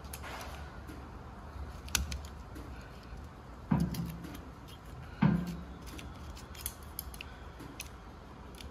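Small clicks and scrapes of hands working a new Teflon seal into its groove on a hydraulic cylinder's piston, with two louder knocks about four and five seconds in.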